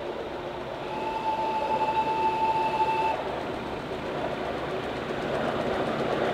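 Miniature steam locomotive's whistle sounding one steady note for about two seconds, over the running noise of the small engine on its track, which grows louder as it approaches.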